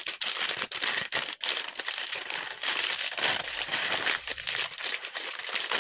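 Plastic courier mailer pouch and bubble wrap crinkling and rustling continuously as a bubble-wrapped parcel is pulled out of the pouch.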